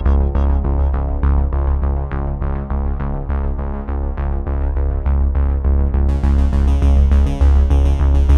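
Background synthesizer music with a steady beat and heavy bass. Brighter high notes join about six seconds in.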